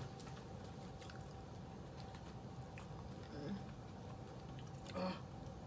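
Faint chewing and eating sounds, with small clicks and rustles of plastic gloves and bags as seafood is picked apart by hand, and one brief louder sound near the end.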